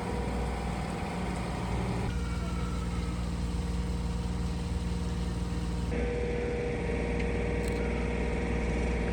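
A vehicle engine running steadily with a constant hum, changing abruptly twice as the recording cuts.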